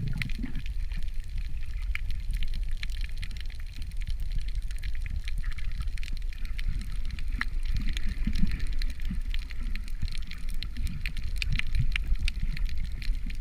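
Underwater ambience recorded by a camera in its housing over a coral reef: a steady low rumble, scattered sharp clicks and crackles, and soft low gurgles.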